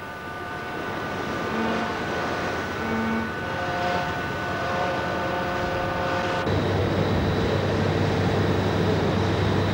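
Ship under way at sea: a steady machinery drone carrying several steady tones, over wind and sea noise. About two-thirds of the way through, the sound changes abruptly to a louder, lower hum with a thin high whine.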